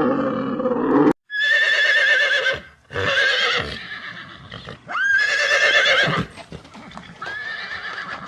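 Horse whinnying, four warbling calls in a row. They follow a lower, different sound that cuts off abruptly about a second in.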